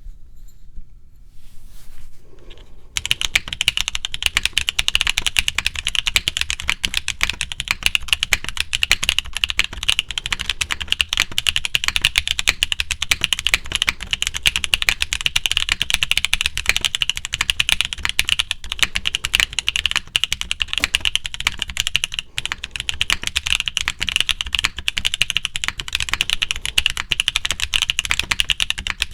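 Fast, continuous typing on a custom mechanical keyboard with lubed Gateron Root Beer Float tactile switches, a polycarbonate plate, an O-ring mount and GMK keycaps. A dense patter of keystrokes starts about three seconds in.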